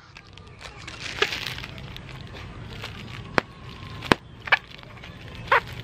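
Thin plastic bag crinkling and crackling in the hands as a tied fish bag is slipped into a second bag, with several sharp crackles along the way.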